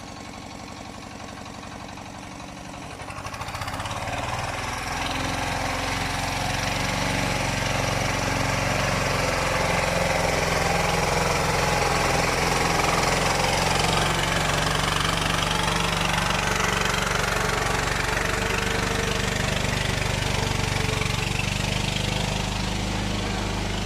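Engine of a Dek 10.5 hp two-wheel walk-behind tractor, idling with even thumps, then throttling up about three seconds in and running steadily and louder while hauling a load of about 500 kg behind it.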